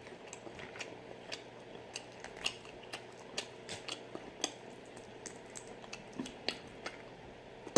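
Close-up eating sounds from a shrimp and crawfish boil: scattered small clicks and crackles of shells being handled and peeled, with chewing and lip smacking. There is a louder click near the end.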